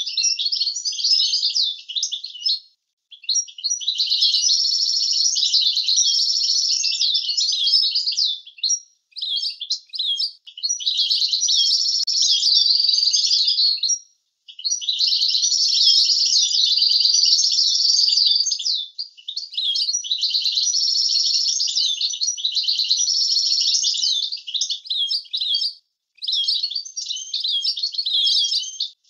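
European goldfinch singing: long phrases of rapid, high twittering and trills, broken by four short pauses.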